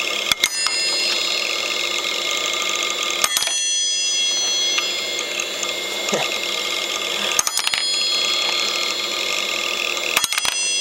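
Old 8 GB hard drive running with its cover off while copying files: a steady high whine with rapid mechanical chatter from the spinning platter and the seeking head arm. Sharp clicks come about four times as small objects are dropped onto the exposed drive.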